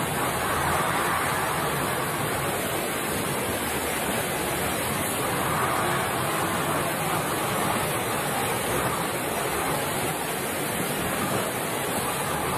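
Steady rushing of a fast, muddy flood river, an even loud wash of water noise with no breaks.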